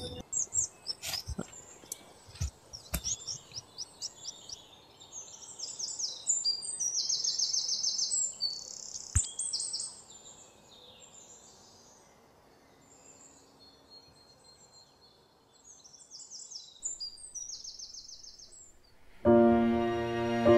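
Birds chirping in repeated high, rapid trilled phrases over faint outdoor ambience, with a string of sharp clicks in the first few seconds. Background music with held notes comes in near the end.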